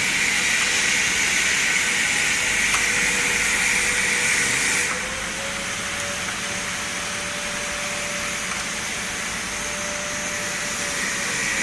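A machine running steadily with a whir and a strong hiss. About five seconds in, the hiss drops and the whir's pitch rises slightly, then settles back near the end.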